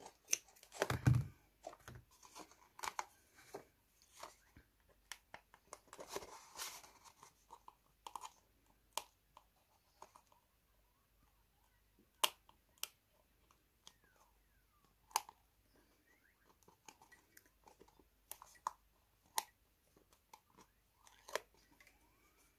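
Paper and card being handled while assembling a paper box: scattered light taps and clicks, a heavier knock about a second in, and a longer rustle around six to seven seconds in.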